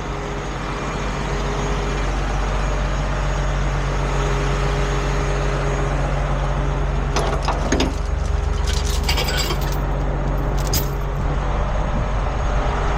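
Heavy tow truck's diesel engine running steadily, getting slightly louder over the first couple of seconds. Metallic clanks and rattles of a tow chain being handled come in about seven seconds in and go on for a few seconds.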